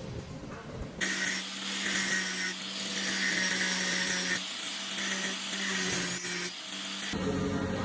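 Power tool running and working on material, a steady hum under a hiss, in several short segments that start and stop abruptly.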